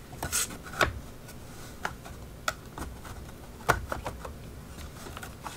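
Scattered light clicks and knocks of thin wood-laminate panels being handled and pushed into their slots, the loudest a knock a little under four seconds in.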